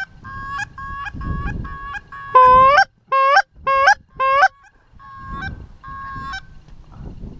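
Goose honking: a string of short honks, then four loud honks about two seconds in that each break upward in pitch at the end, then a few more short honks. Wind rumbles on the microphone underneath.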